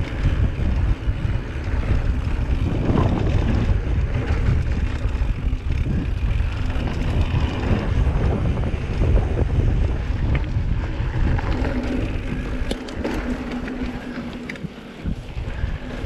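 Wind buffeting the camera microphone over the rumble of mountain bike tyres rolling fast along a dirt singletrack trail. The low rumble eases about three-quarters of the way through.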